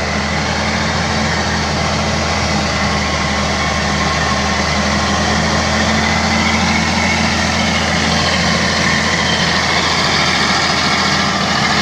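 An old crawler bulldozer's diesel engine running steadily under load as the machine pushes a heap of topsoil.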